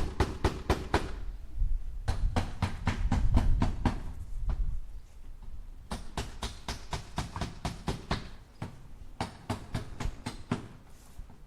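Hammer striking nails in quick runs of about four or five blows a second, each run broken by a brief pause, with a low rumble under the second run.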